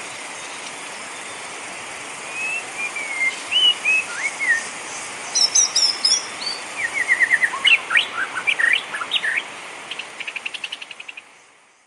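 Steady hiss of falling rain with songbirds chirping and whistling over it from about two seconds in: short rising and falling whistles, then quick trills and chirp series. All of it fades out near the end.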